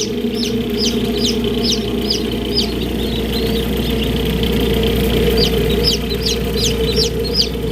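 Newly hatched chicks peeping: short, high notes that each slide downward, about three a second. They thin out around the middle and pick up again near the end. A steady hum runs underneath.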